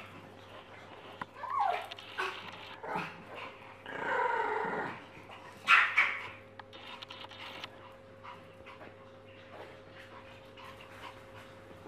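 A dog giving a string of short whines and barks, with a longer drawn-out call about four seconds in and the loudest bark about six seconds in; the calls thin out over the last few seconds.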